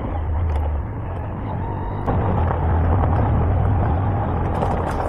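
Motorcycle engine running while riding a rough off-road track, getting louder about two seconds in.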